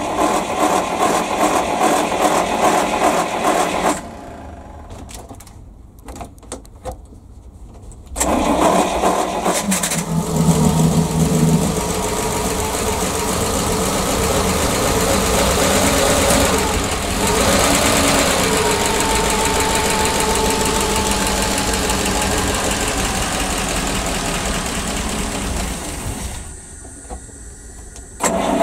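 PAZ-672 bus's V8 petrol engine is cranked on the starter for about four seconds without catching. After a short pause it is cranked again and fires about eight seconds in, then runs steadily with its valve clearances freshly adjusted. The sound drops away near the end.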